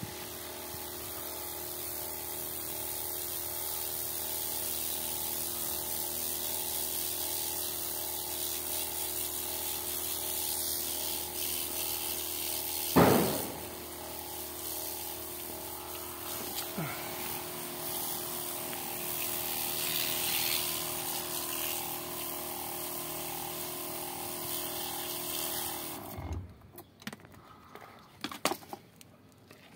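Garden-hose spray nozzle jetting water onto a potting-soil root ball on tile, a steady hiss with a hum under it, washing the soil off a ficus cutting's new roots. A single sharp knock about halfway through; the spray cuts off suddenly near the end, followed by a few light taps.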